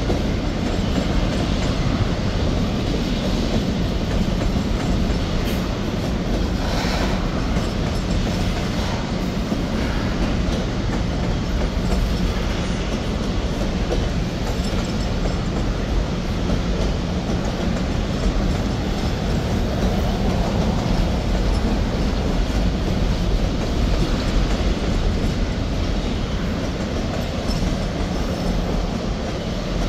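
A CSX manifest freight train's cars, covered hoppers and then boxcars, rolling past at a steady pace: a continuous noise of steel wheels on the rails with occasional clacks.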